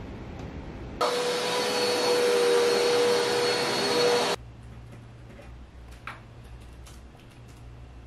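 Upright vacuum cleaner running with a steady whine, starting abruptly about a second in and cutting off suddenly after about three seconds. Afterwards only a low room hum with a few faint clicks.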